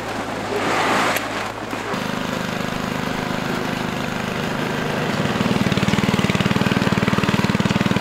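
Boots squelching through thick mud, then the small petrol engine of a motorised power barrow running. About five seconds in the engine gets louder, with an even pulsing beat, as the barrow drives off loaded with shingle.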